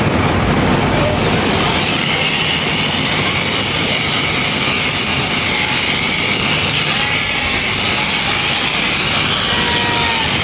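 Electric sheep-shearing handpiece running steadily, a loud continuous buzzing hiss.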